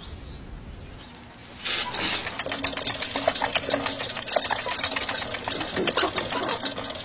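Hamster exercise wheel spinning with a rapid, even clatter, starting about a second and a half in.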